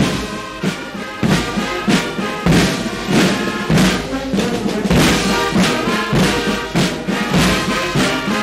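Military brass band playing, with a steady drumbeat under sustained brass chords.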